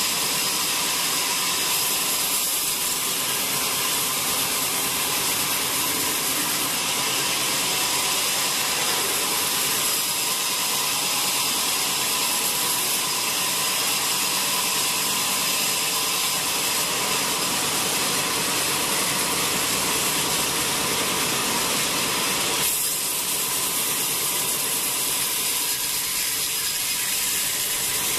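Band sawmill running, its blade sawing lengthwise through a wet teak log: a steady high hiss with a constant whine. The sound thins a little about 23 seconds in.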